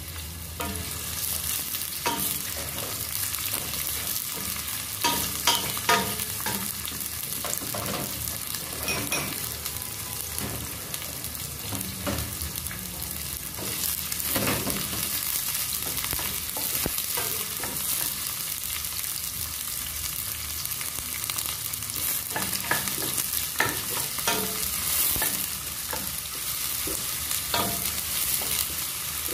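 Sliced red onions and garlic sizzling in hot oil in a stainless steel pot, a steady frying hiss. A wooden spoon stirs them, with scattered scrapes and taps against the pot.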